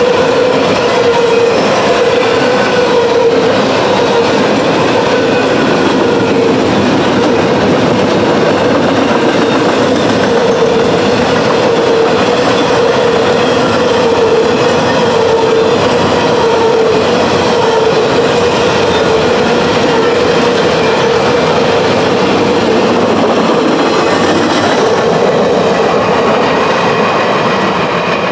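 Intermodal freight train rolling past: a steady clatter of wheels on the rails with a steady tone running through it, fading near the end as the last car clears.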